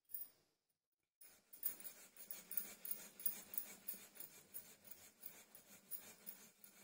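Wooden rolling pin rolling out a potato-stuffed paratha on a floured countertop: soft rhythmic rolling-and-scraping strokes, about three a second, starting about a second in.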